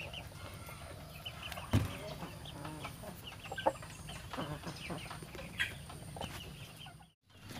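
Chickens clucking softly with short high peeps, with a sharp knock about two seconds in. The sound drops out briefly near the end.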